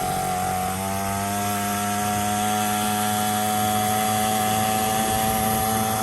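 Newly swapped 49cc dirt bike engine running steadily just after its first start, choke on, at a fast idle; its pitch lifts slightly about a second in.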